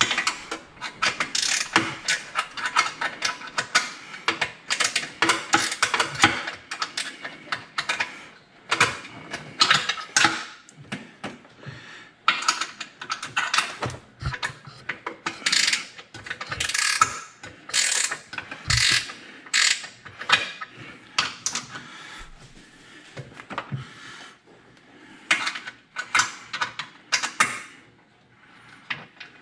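Hand ratchet clicking in repeated quick runs with short pauses between them, as fasteners are worked during an oil catch can install in the engine bay.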